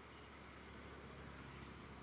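Faint low engine hum of the vehicle being ridden, under a steady hiss, growing slightly louder toward the end.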